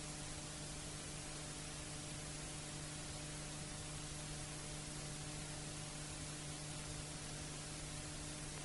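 Steady hiss with a low hum underneath, unchanging throughout: the background noise of an old archival recording, with no other sound.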